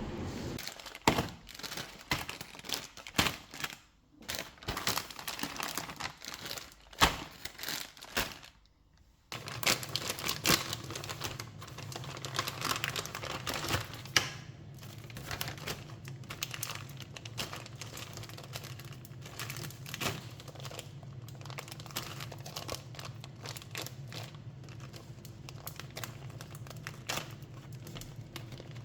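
Crinkling, rustling and tearing of packaging, with scattered knocks and clicks. About nine seconds in, a steady low hum starts underneath as the crinkling goes on.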